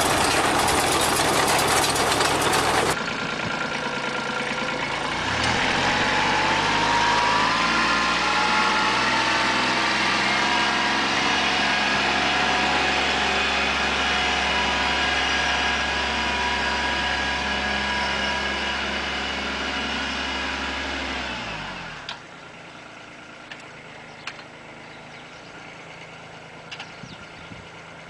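A harvesting machine clattering loudly as it drops soil into a trailer. Then a small compact tractor's engine runs as it pulls a plough through soil, rising in pitch about five seconds in and holding steady. About 22 seconds in the engine sound falls and fades, leaving a faint background with a few clicks.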